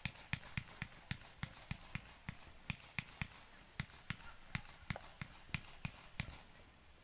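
Fireworks firing a quick, even series of sharp pops, about four a second, which stop shortly before the end.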